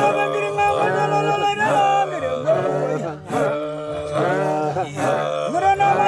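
Several men singing unaccompanied: a wavering lead melody over a steady low drone.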